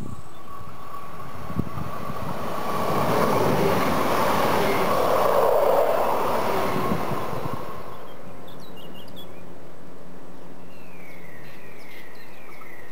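Double-deck electric passenger train passing close by: the rumble and wheel noise swell over a few seconds, peak and fade away as it recedes, with a steady high tone running under the pass-by.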